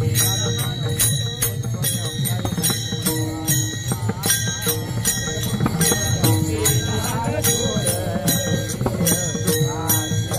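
Marathi devotional kirtan music: small hand cymbals clash in a steady rhythm over held tones and a low drum, with a melody that wavers in pitch now and then.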